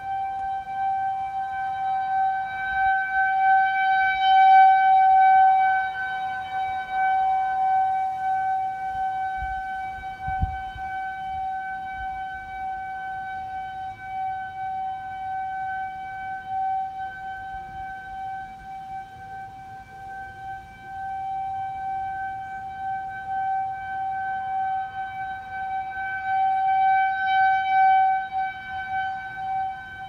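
Federal Signal 2001-130 rotating outdoor warning siren sounding a steady, single-pitched tone for a tornado warning. It swells and fades in loudness as the rotating siren turns, loudest a few seconds in and again near the end.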